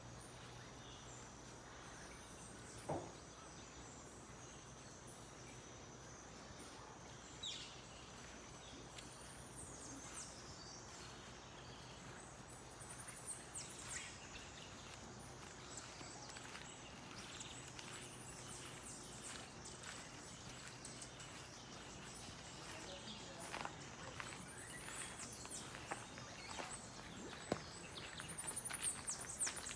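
Faint outdoor nature ambience: birds give short high chirps now and then, over a steady thin high tone, with a few light knocks or snaps scattered through.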